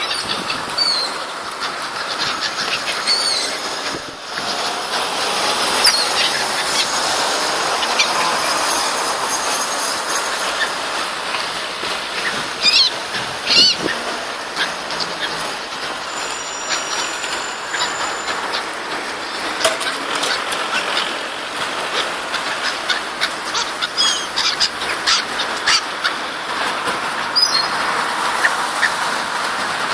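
Small birds chirping in short calls over a steady rush of city street noise, with a tram running past whose wheels squeal in thin high tones about midway.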